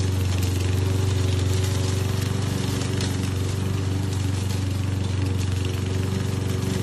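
Walk-behind gasoline lawn mower engine running steadily at a constant speed.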